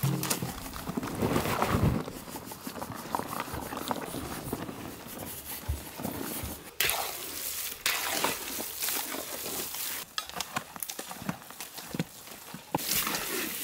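A bare hand mixing ragi (finger millet) flour into water in a large aluminium pot: uneven wet swishing and squelching, with occasional short clicks.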